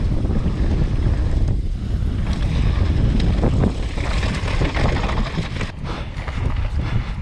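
Wind buffeting the microphone of a camera on a mountain bike riding fast down a dirt trail, with a steady rush of tyre noise and scattered knocks and rattles. The sound drops briefly a little before six seconds.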